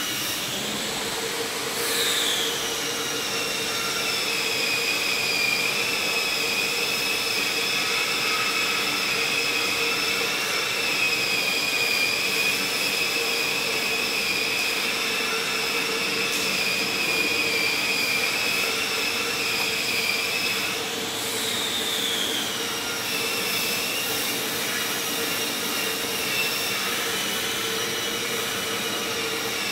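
Cummins NT855-GA six-cylinder diesel engine of a 200 kW open-type generator set running steadily, heard close up. A high-pitched whine rides over the engine noise and drops in pitch about two seconds in and again about 21 seconds in.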